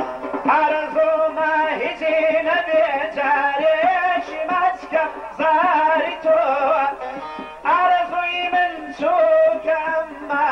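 Kurdish song in a Middle Eastern style: a male voice sings an ornamented melody in phrases over instrumental accompaniment.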